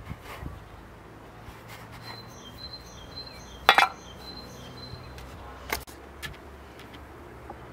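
A bird chirping in a quick run of short, high notes, over sharp knocks and a brief loud clatter about midway, with another knock a couple of seconds later.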